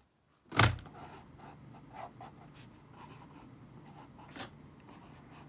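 Graphite pencil scratching on paper in short strokes, drawing small symbols. A single sharp thump comes about half a second in.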